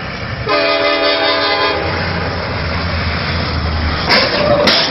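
Freight locomotive air horn blasting one chord of several tones for about a second, a warning at the crossing, followed by the low rumble of the approaching diesel train. Two sharp loud cracks come near the end.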